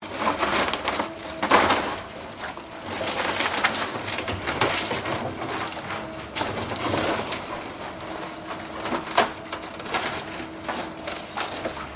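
Wooden house being demolished: wood cracking and splintering as the structure crumbles, with many small knocks of falling debris and heavier crashes about one and a half seconds and seven seconds in.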